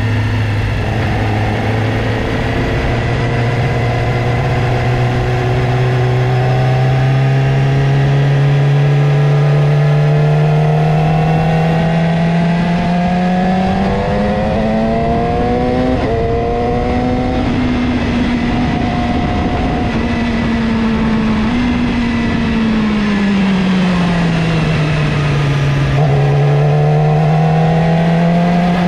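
Motorcycle engine under way, its pitch climbing slowly as it speeds up through the first half, holding, then falling as it slows about two-thirds through and rising again near the end.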